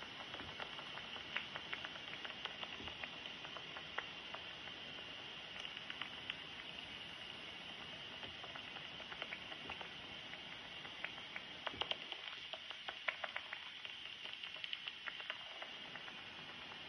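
Pettersson Elektronik heterodyne bat detector's speaker giving a steady hiss broken by sharp clicks, which bunch into quick runs several times. These are a bat's echolocation calls, sent out at about 30 kHz and brought down by the detector to an audible pitch; the steady pulses are the search pulses of a bat hunting flying insects.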